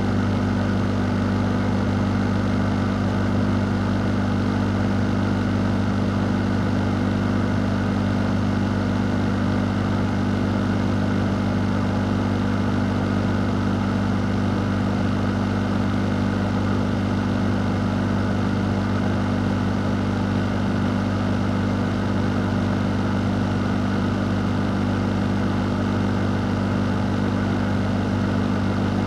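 An electric fan running steadily: a constant low motor hum under an even rush of moving air, unchanging throughout.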